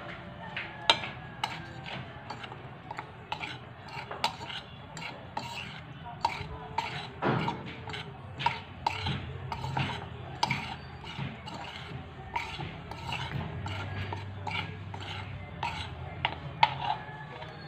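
Metal forks and a spoon stirring dry flour in a bowl, with irregular clinks and scrapes against the bowl, two or three a second.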